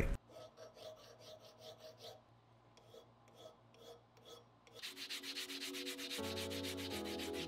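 Files scraping in slow, faint strokes across a cast aluminium hammer handle clamped in a vise. About five seconds in, this gives way to louder, faster back-and-forth rubbing with an abrasive pad, smoothing the casting.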